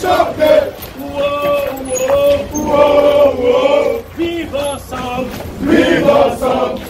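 A group of men singing a chant together in unison, in held sung phrases with short breaks about a second in and about four seconds in.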